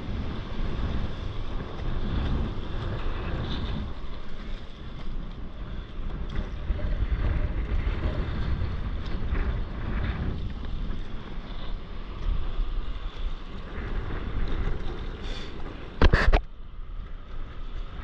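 Wind buffeting the microphone over open sea water on a stand-up paddleboard, a steady rough rumble. A short loud bump about sixteen seconds in.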